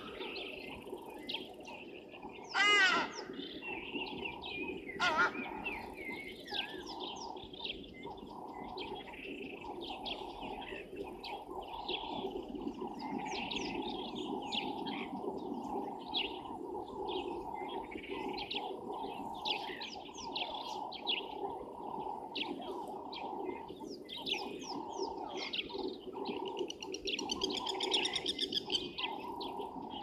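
A chorus of wild birds chirping and calling, with a loud call with falling pitch about two and a half seconds in and another near five seconds, over a steady low drone.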